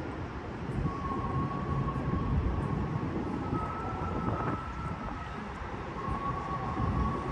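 Steady low city rumble of traffic or a train, with faint held high tones fading in and out.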